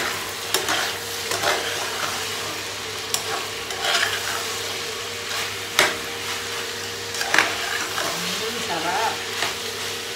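Diced pork sizzling in a pot while a metal spoon stirs it, with irregular knocks and scrapes of the spoon against the pot.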